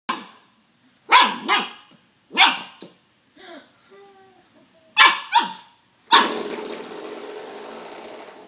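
Puppy barking in short sharp barks, mostly in pairs, with a few fainter whiny sounds in between. About six seconds in, the spring doorstop it is pawing twangs, ringing and slowly fading over about two seconds.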